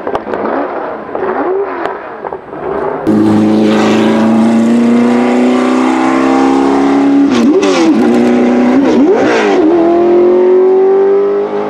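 Porsche 908/3's 3-litre flat-eight racing engine under hard acceleration. For about three seconds it is quieter, rising and falling in pitch. Then it comes in much louder, climbing steadily in pitch, with two quick gear changes where the pitch dips and recovers, before pulling up again.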